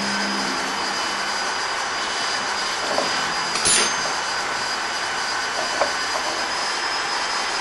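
Steady loud mechanical hum of machinery running, with a few light clicks and one brief scrape as the pecan cracker's metal pocket fittings are handled and pulled off the rotor.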